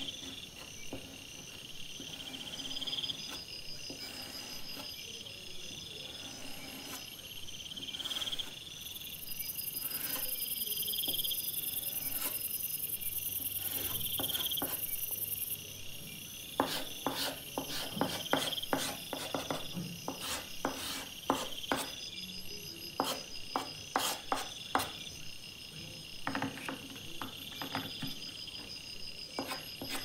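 Insects chirping in short repeated pulses at a steady rhythm, with a continuous high trill from about a third of the way in to halfway. In the second half, quick sharp scratches of soft pastel stroked on sandpaper come in over them.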